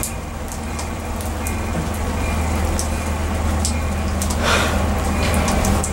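Steady rain, with scattered drops ticking close by over a constant low hum. About four and a half seconds in, a brief hiss swells up and fades.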